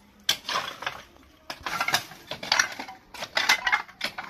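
Long metal rod prodding and scraping through rubble and broken tiles, giving irregular clinks, scrapes and clatters.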